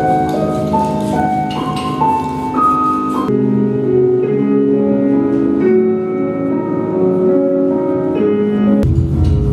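Instrumental music: a melody of separate notes climbs step by step over the first three seconds, then gives way to lower held notes, and a beat comes in near the end.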